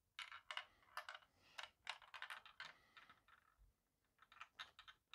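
Ball rolling and clicking against the plastic bricks of a handheld LEGO marble maze (40596 Magic Maze) as it is tilted: faint, irregular light clicks and rattles, thinning out about three seconds in.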